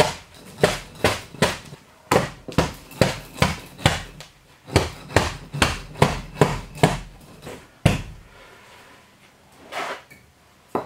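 A piece of wood used as a mallet, knocking a tight-cut foam insulation board into place for a pressure fit. It gives a quick series of knocks, about two or three a second, which stop about eight seconds in, followed by one or two more knocks near the end.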